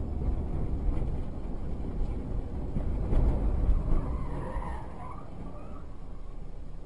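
Road noise and engine rumble of a moving car, with jolts loudest about three to four seconds in and a faint wavering higher tone, like a tire squeal, around four to five seconds in.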